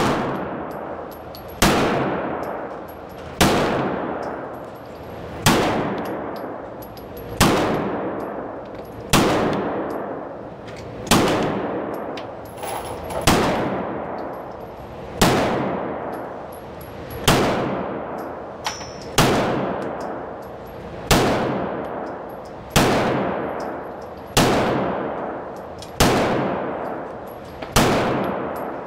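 Beretta M9A4 9mm pistol fired in slow, deliberate single shots, about one every two seconds, each crack followed by a long echo in an indoor range.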